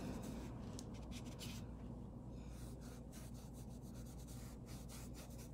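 Faint scratchy strokes of a paintbrush working acrylic paint onto a tool bag, over a low steady hum.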